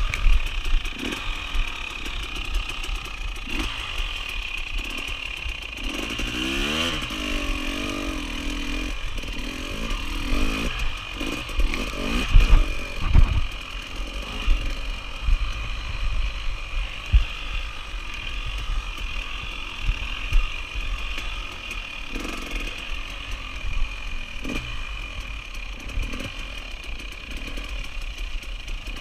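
Enduro motorcycle engine running under load on a rough trail, the revs rising and falling with the throttle, with thumps and rattles from the bike going over bumps.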